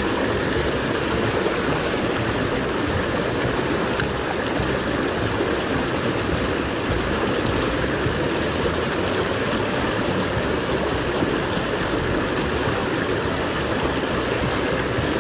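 Small mountain creek rushing and splashing over rocks in a shallow cascade close by: a steady, even water noise.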